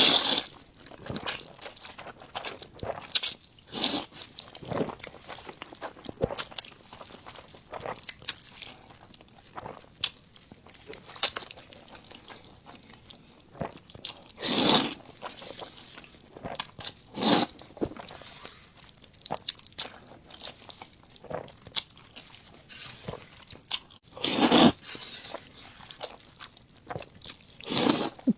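Close-miked mouth sounds of a person eating Schezwan fried noodles: irregular biting and chewing with crunchy, wet clicks, and a few longer, louder bursts midway and near the end.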